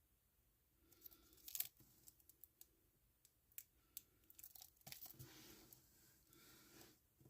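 Plastic shrink wrap being torn and crinkled off a Blu-ray case, quiet and close, with a scatter of small sharp clicks and crackles starting about a second in and stopping just before the end.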